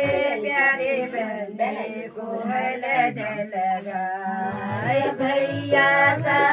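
Music with a woman singing a melody. A low, regular beat joins about two-thirds of the way through.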